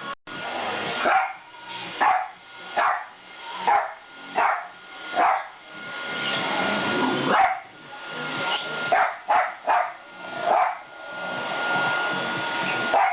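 A Jack Russell terrier barking at a running iRobot Roomba robot vacuum. The sharp barks come about once a second, with a short pause about halfway through. The vacuum's steady motor whine and brush noise run underneath.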